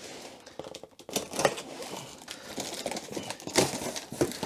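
A cardboard box being opened and its packing material rummaged through: irregular crinkling, rustling and small knocks.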